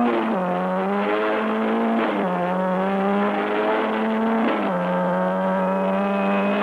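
Engine running with its revs held, then dropping and picking up again several times, heard on an old film soundtrack with a muffled, narrow sound.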